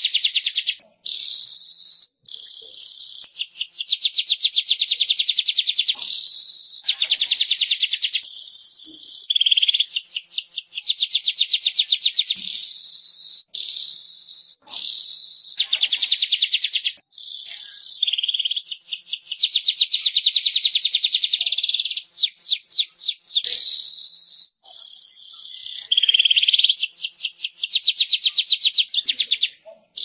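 Manyar (weaver bird) song: long runs of very rapid, high-pitched, buzzy ticking trills, in bursts of a few seconds broken by short pauses.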